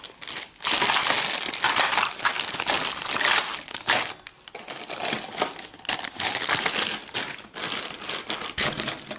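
Sealed clear plastic toy bags crinkling and rustling as hands pick up and shuffle several packets, with irregular crackles throughout.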